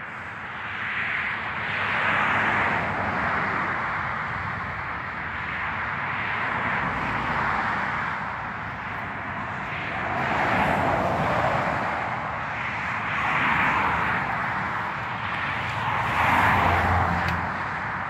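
Rushing outdoor noise with no tone in it, swelling and fading about five times.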